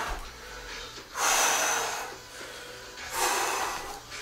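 A man breathing hard, winded after a long set of push-ups and plank. Two loud, rough breaths come about two seconds apart, with the tail of an earlier one at the start.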